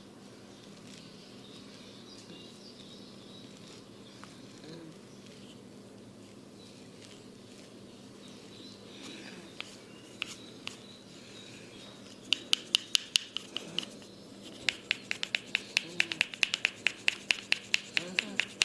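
Rapid rhythmic tapping on a person's head during a massage: sharp taps about five or six a second. They start about twelve seconds in after a long low-level stretch with a few stray clicks, and pause briefly before going on.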